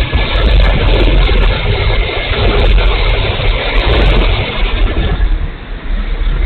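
Loud wind roar buffeting a camera microphone, a heavy rumbling rush that eases off about five seconds in.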